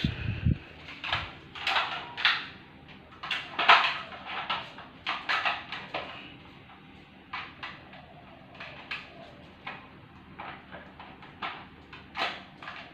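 Plastic dog puzzle feeder clacking and scraping on a tile floor as a toy poodle noses and paws at its sliding covers: irregular short clicks and rattles, a couple a second, with a low thump at the very start.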